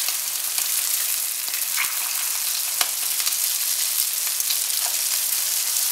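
Rice-paper spring rolls sizzling as they shallow-fry in hot seed oil in a frying pan: a steady hiss with a few scattered pops.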